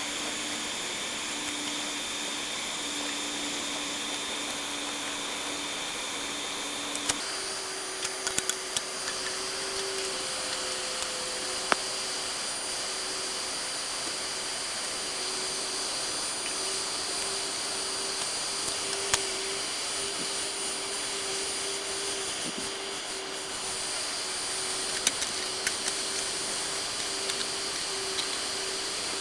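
Hair dryer forcing air through a pipe into a coal-fired trash can furnace: a steady blowing noise with a hum and a high whine that both step up in pitch about seven seconds in. Scattered sharp clicks and pops over it.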